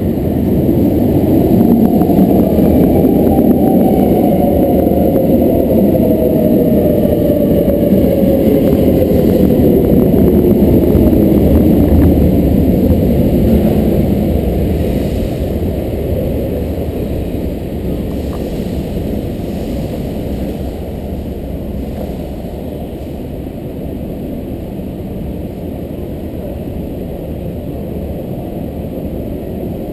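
Brussels metro train pulling into an underground station: a loud rumble with a whine that falls steadily in pitch as it brakes. Halfway through it grows quieter and settles to a steady hum once the train has stopped.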